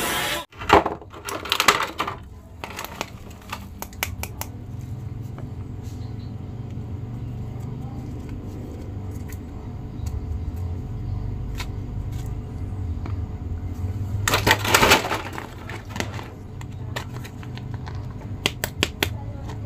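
A plastic action figure and a clear plastic blister tray being handled by hand: scattered clicks and crinkles, with louder rustling bursts about a second in and again about 15 seconds in, over a steady low hum.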